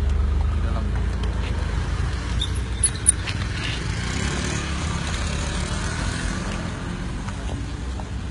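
Steady low rumble of road traffic going by, with two short sharp clicks about three seconds in.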